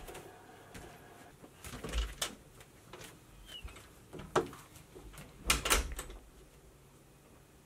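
A few separate knocks and clicks of a wooden interior toilet door being handled, with footsteps. There are knocks about two seconds in and again about four and a half seconds in, and the loudest is a quick cluster of sharp clicks from the lever handle and latch about five and a half seconds in.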